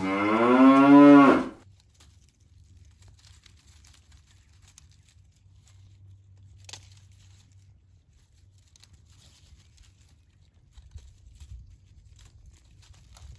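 A cow mooing, one loud call that rises in pitch and cuts off about a second and a half in. After it come only faint scattered rustles and ticks of hands working wire netting in dry leaves, over a low rumble.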